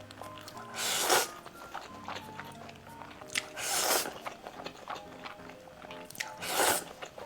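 Close-miked eating sounds: three loud mouth sounds of about half a second each, about a second in, around four seconds and near the end, over background music.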